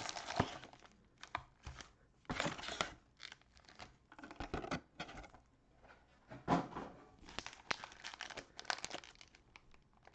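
Plastic cello-wrapped trading-card packs crinkling and rustling as they are tipped and handled out of their box, in irregular bursts.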